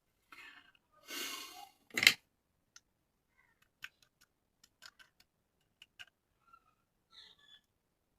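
Toy parts and packaging being handled close to the microphone: a brief rustle, a longer rustle about a second in, then a sharp click or snap about two seconds in, the loudest sound. Scattered light clicks and taps follow through the rest.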